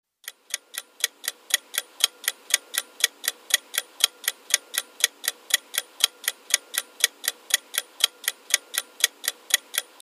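Clock-style ticking sound effect of a quiz answer countdown timer, about four even ticks a second, fading in over the first second and running for the ten seconds given to answer.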